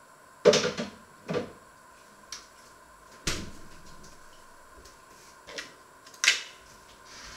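Kitchen clatter: a few sharp knocks and clunks of things being handled and set down, four louder ones spread over the seconds, the first and last the loudest.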